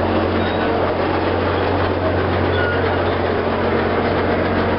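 A standing train's engine idling with a steady low hum.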